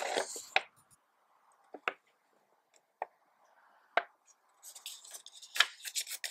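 Paper brochure rustling as it is unfolded, handled and folded back up, with a few short sharp ticks of the paper in between.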